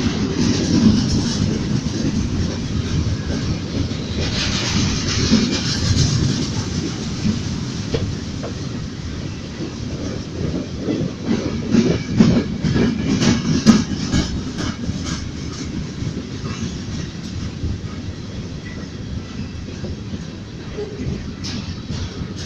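Freight train rolling past, a steady rumble of cars with their wheels clacking over rail joints, the clacks thickest about halfway through.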